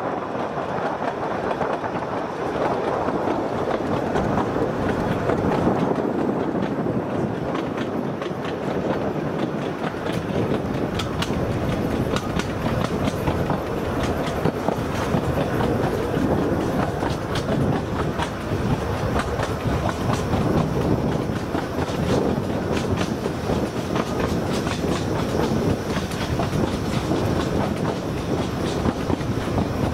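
Narrow-gauge (1 ft 11½ in) train running along the line: a steady noise of wheels on the track, with irregular sharp clicks that become more frequent about a third of the way in.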